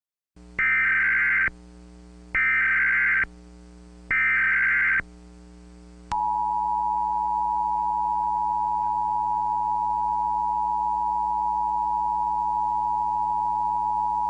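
Emergency Alert System tones: three bursts of the SAME digital header, each about a second long and about a second apart, then a click and the steady two-tone attention signal held for about eight seconds. A faint low hum runs underneath.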